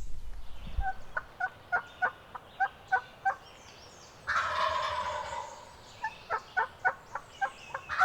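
Wild turkeys: a quick run of yelps, then a long rattling gobble from a gobbler about four seconds in, then another run of yelps and a second gobble starting near the end.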